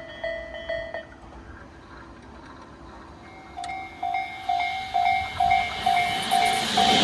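Japanese level-crossing alarm ringing its repeating kan-kan tone, about two strikes a second, which stops about a second in. A second crossing bell at a slightly higher pitch starts about three and a half seconds in and grows louder as the approaching train's noise builds.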